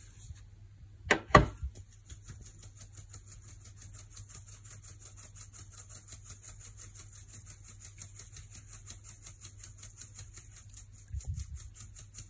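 Fine metal mesh sieve shaken back and forth over a glass bowl, sifting powdered sugar and ground hazelnuts: a quick, even rasping rhythm of several strokes a second. Two knocks sound about a second in, before the rhythm starts.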